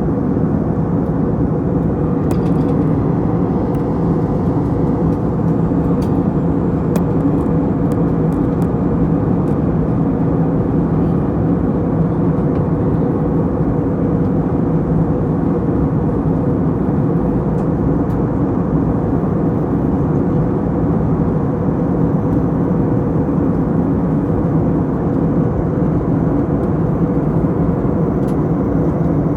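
Steady cabin noise of an airliner in flight, heard from a window seat: an even roar of engines and airflow with a low hum running through it.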